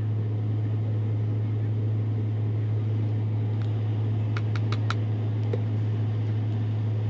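Window air conditioner running with a steady low hum and a rushing noise. A few light clicks come a little past the middle.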